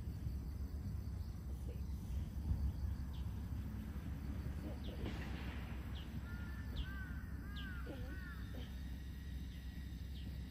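Outdoor birdsong: a run of about six quick arched calls from one bird about six seconds in, with short high chirps here and there, over a steady low background rumble.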